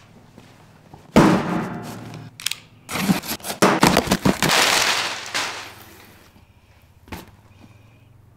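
Cardboard shipping box being opened by hand: flaps pulled back and crumpled kraft packing paper rustling and crinkling. It starts sharply and loudly about a second in, comes in a run of crackly bursts, fades out after about six seconds, and ends with a single click near the end.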